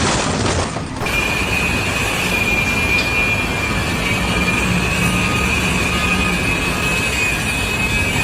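Heavy machinery running steadily with a continuous high-pitched squeal over a low rumble, starting about a second in after a brief different sound.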